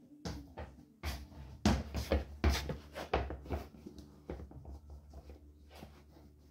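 Loose Nike Shox sneakers knocking, scuffing and slapping against a laminate floor as the feet slip in and out of them and dangle them. A quick, loud run of knocks about a second in, thinning to sparser taps in the second half.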